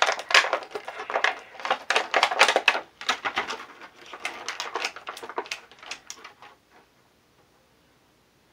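Clear plastic packaging tray crinkling and crackling in the hands, a rapid irregular run of sharp clicks, as an action figure is worked out of it. It stops after about six and a half seconds.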